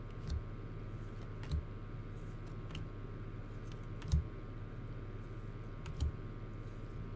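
Baseball cards being handled and flipped through, making five short, irregular clicks and taps over a steady low electrical hum.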